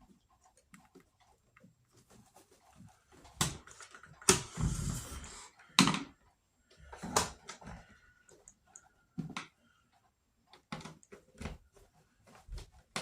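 Scattered clicks and knocks of hard plastic parts of a Kirby vacuum being handled and fitted back together, with a short scraping rub about four seconds in.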